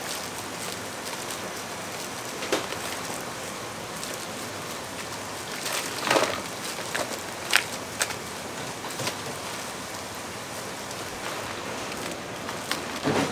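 Chicken feet sizzling steadily on a wire grill over coal briquettes, with a few sharp knocks along the way.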